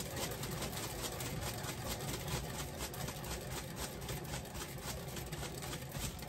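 Paint-pouring spinner turntable whirling a canvas on its support arms: a steady whirring rattle with a fast, even pulse. It cuts off at the very end as the spin stops.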